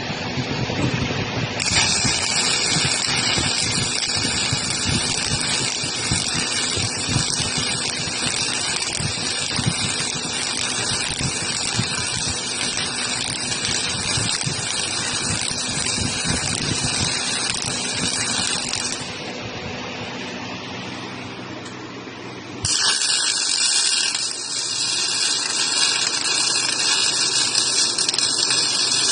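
Robotic arc welding: the welding arc hissing and crackling steadily, with sudden shifts in level and tone a few times.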